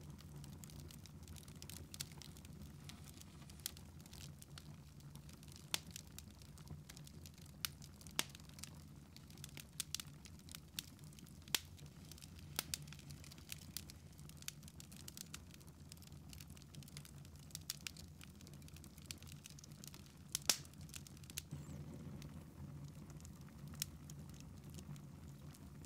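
Wood fire crackling in a fireplace: faint, irregular sharp pops and snaps, a few louder than the rest, over a steady low hum.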